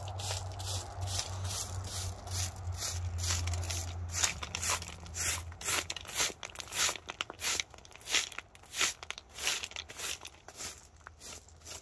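Track broom sweeping loose crushed-stone ballast off the ties of a miniature railway track: repeated scratchy strokes, about two to three a second, with stones rattling and crunching. A steady low hum runs under the first half.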